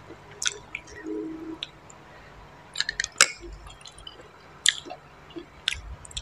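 Close-miked wet eating sounds: chewing with several sharp lip smacks and wet clicks, from someone eating spicy papaya salad and boiled snail meat.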